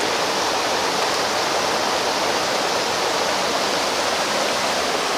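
Steady rushing of flowing water, an even hiss that holds at one level without a break.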